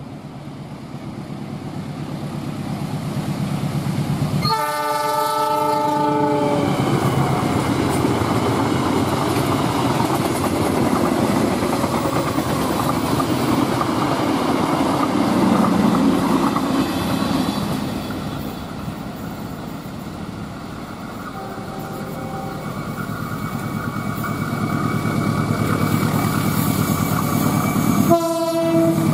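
Diesel locomotive's horn sounding a chord of several notes for about two seconds as a passenger train approaches. Then a steady rumble of engine and wheels on the rails as the train passes close by, swelling to a peak, easing off, and rising again, with another short horn blast near the end.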